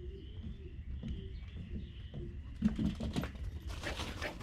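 Several short, low cooing calls from a dove in the first half, then a rapid patter of clicks and knocks from about two and a half seconds in.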